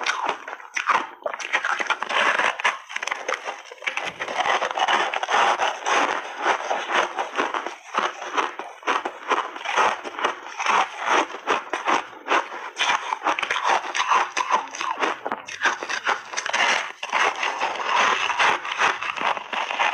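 A frozen ice cake coated in milk powder, bitten in big bites and chewed close to the microphone: a dense run of crisp, crackling crunches with a few short pauses.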